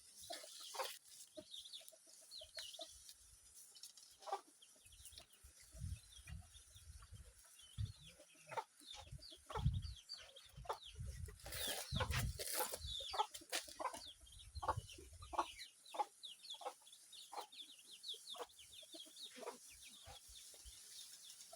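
Chickens clucking, with many short, scattered calls and a low rumble now and then.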